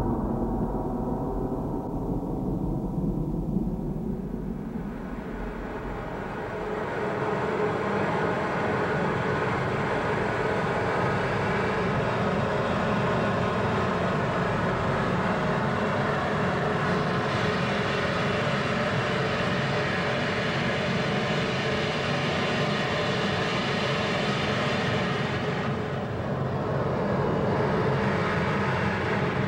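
Layered drone of sustained steady tones from an experimental film soundtrack. It starts thin and gong-like, then thickens into a dense, steady wash about six seconds in.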